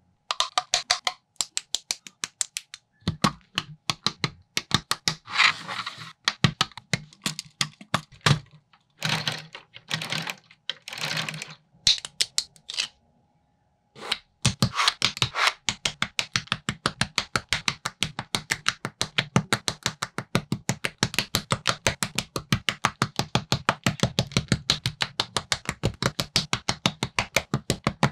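Plastic building bricks and plates clicking and snapping together by hand: a fast run of sharp clicks with a few short stretches of rustling, which drops out briefly about halfway through, then settles into quick, even clicking at about four a second.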